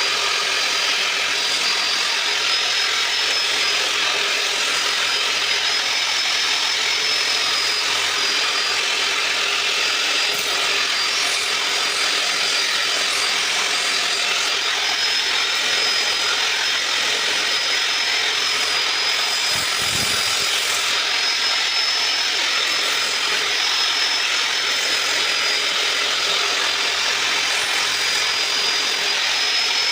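Electric power tool spinning a sanding disc against wood, running steadily with a high whine that wavers slightly in pitch over a gritty hiss. A brief low bump comes about two-thirds of the way through.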